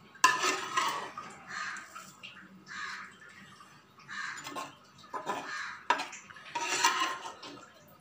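Crows cawing repeatedly, about half a dozen harsh calls, with the loudest near the start and again late. A sharp metallic clink or two from the steel dishware falls between them.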